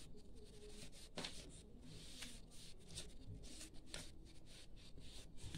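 Blue colored paper being folded back and forth and creased by hand: faint, irregular rustling with a few sharper crackles.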